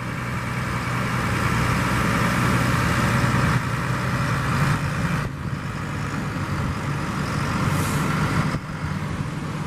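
Motor engines running steadily at a surf beach boat launch, with the wash of surf and wind around them.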